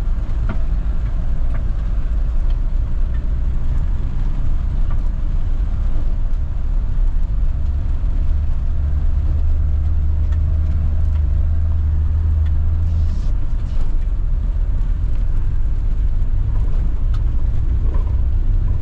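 Renault Master camper van driving on a rough, broken road: steady low engine and tyre rumble with a few light knocks, and a deeper drone that holds for several seconds in the middle.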